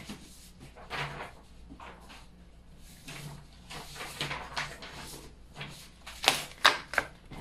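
Sheets of printer paper being handled, rustling and scraping lightly in short strokes, loudest in two sharp strokes about six and a half seconds in.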